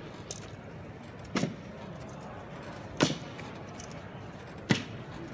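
Sharp knocks repeating evenly, about one every second and a half, over a steady background hum.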